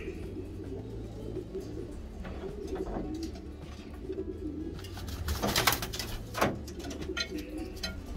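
Homing pigeons cooing steadily in a loft. A little past halfway, two short, louder rustling noises break in, the second just after the first.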